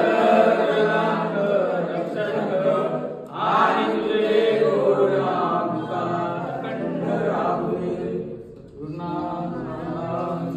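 A group of worshippers chanting a Hindu devotional prayer together in unison, in long phrases with short breaks about three seconds and eight and a half seconds in.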